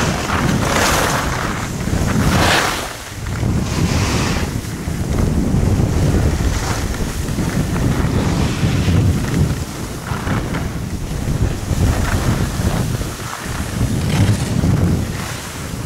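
Wind buffeting the camera's microphone during a downhill ski run, a steady low rumble. Over it, skis scraping and swishing on the snow in turns, loudest about one, two and a half and four seconds in.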